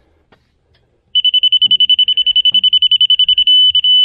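Electronic level's beeper going off about a second in: a rapid string of high-pitched beeps, about a dozen a second, that nearly runs together into one steady tone near the end, the signal that the sawmill rail being checked is close to level.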